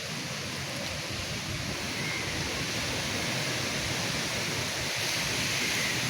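Heavy rain in a thunderstorm: a steady hiss of falling rain that grows slightly louder from about two seconds in.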